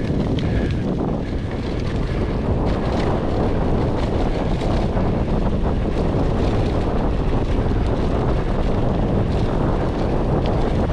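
Wind buffeting an action camera's microphone on a mountain bike in motion, a steady rushing noise strongest in the low range, with many small clicks and rattles scattered through it.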